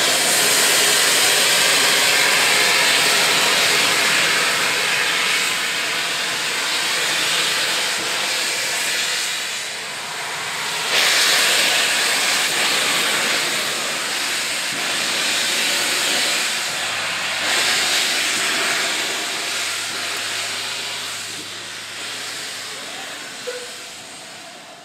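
LNER A4 steam locomotive, a three-cylinder Pacific, moving off with its cylinder drain cocks open: a loud, steady hiss of escaping steam that surges twice and fades as the engine draws away.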